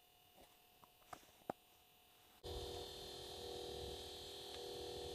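A few small clicks and taps of fingers handling a small plastic bait container, the sharpest about a second and a half in. About halfway through the sound jumps suddenly to a steady buzzing hum with several fixed tones.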